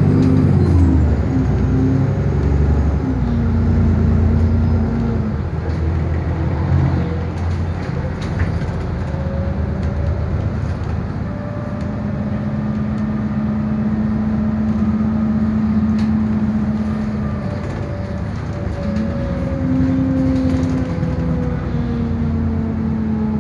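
A London bus's engine and driveline heard from inside the saloon while driving, the pitch rising, holding and falling several times as the bus accelerates, cruises and slows. Light clicks and rattles from the interior fittings come through now and then.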